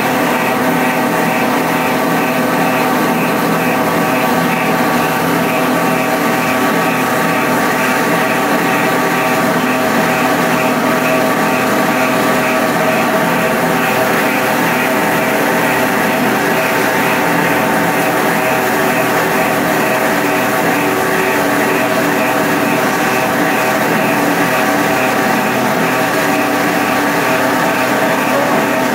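Plastic granule (dana) making machine, a 90 mm extruder line with strand pelletizer, running steadily: a constant mechanical drone made of several steady tones, with no change in speed.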